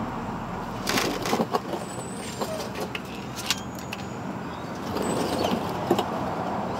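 A few short clicks and knocks of hand and tool work under the truck, a cluster about a second in and a few more near the end, over a steady background rumble.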